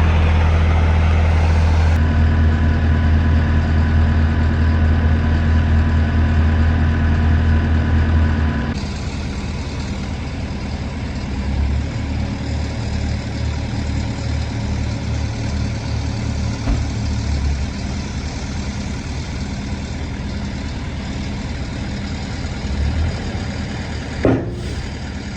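Heavy truck engine running at raised speed with a steady whine for about nine seconds, then dropping back to a lower idle. A brief knock comes near the end.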